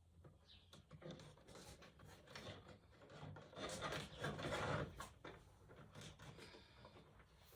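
Faint, irregular scraping and rubbing of pieces being handled and fitted by hand, with a few light knocks, loudest about four seconds in.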